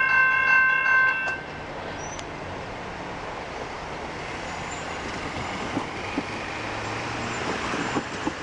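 Train horn sounding a chord of several steady notes that cuts off about a second in, followed by the steady rumble and rush of the train rolling past on the rails, with a few sharp clicks near the end.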